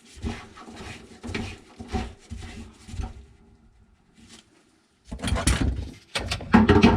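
Plumbing fittings and gaskets being rummaged through and handled: irregular knocks and rustling, a short lull, then two louder bursts of clatter near the end.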